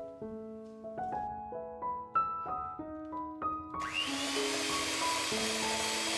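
Breville electric hand mixer switching on about two-thirds of the way in, its motor whining up in pitch and then running steadily as the beaters cream butter in a glass bowl, over gentle background piano music.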